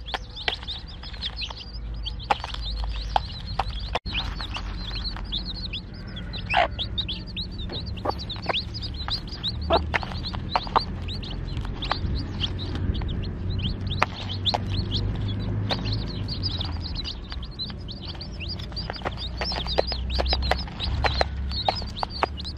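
Newly hatched Fayoumi chicks peeping: a dense, continuous stream of short, high, falling chirps, with a low rumble underneath.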